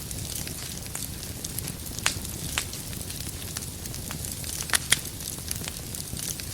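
Wood fire crackling in a fireplace: a steady low rumble and hiss of flames with scattered sharp pops from the burning logs, the loudest two coming close together just before five seconds in.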